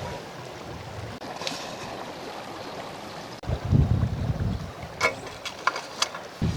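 Stream water running steadily. From about halfway, gusts of wind rumble on the microphone, and a few light clicks come near the end.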